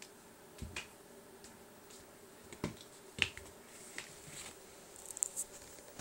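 Cat scrambling and playing on a tile floor: scattered light clicks and a few soft thumps, with a quick run of sharp clicks near the end as it dashes off.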